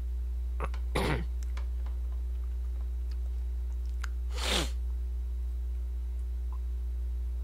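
A man's short wordless vocal sounds: a brief grunt about a second in, then a breathy exhale falling in pitch around the middle. Both sit over a steady low hum.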